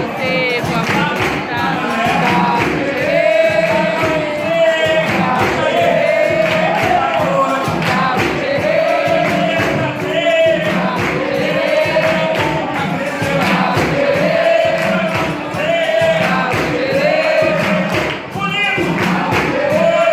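Capoeira roda music: a group of voices singing repeated phrases over steady percussion.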